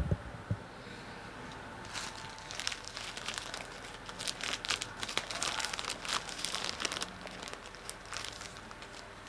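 Clear plastic bag of ground coffee being handled, its plastic crinkling in a run of crackles that starts about two seconds in and lasts several seconds, with a few more crinkles near the end.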